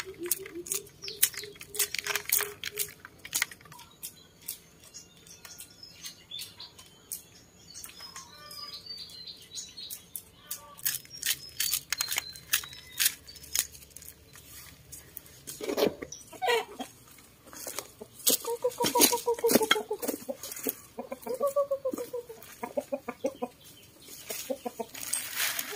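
Dried corn kernels shelled off the cob by hand, clicking and pattering into a woven bamboo basket in many small ticks. Partway through, chickens start clucking repeatedly.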